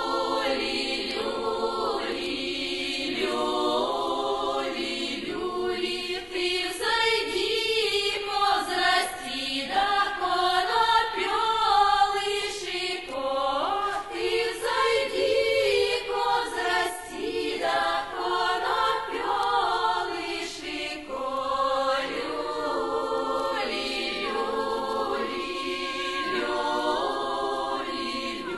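Russian folk choir singing a folk song.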